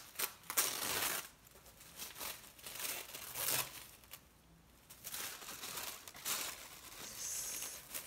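Tissue paper rustling and crinkling in irregular bursts as it is unfolded and pulled open by hand, with a brief lull about halfway.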